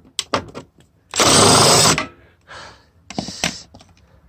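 Cordless impact driver run in one burst of just under a second, backing out a rusty headlight screw. Short clicks and knocks of the tool against the fitting come before and after it.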